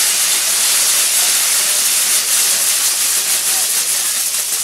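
Maltese ground-firework wheels (nar tal-art) burning, giving off a loud, steady hiss as the fountain charges drive the spinning wheels and throw sparks.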